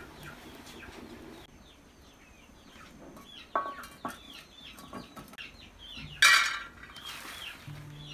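A metal pan on a wood-fire stove clanks with a short ring about three and a half seconds in. About six seconds in, raw peanuts are poured into the dry pan with a brief, loud rattle. Birds chirp in the background throughout.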